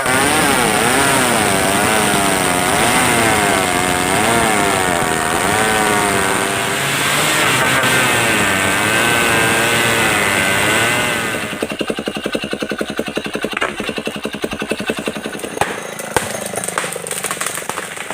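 Stihl 070 two-stroke chainsaw running at high revs, its pitch swinging up and down. Partway through it drops to a quieter, rattling idle.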